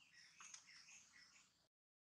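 Faint, high bird chirps, a few short calls in quick succession, cutting off to dead silence near the end.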